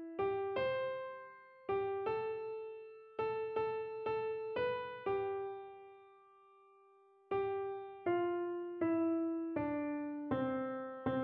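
Piano playing the soprano line of a choral piece, one note at a time with no chords. A long note fades away about halfway through before the melody picks up again.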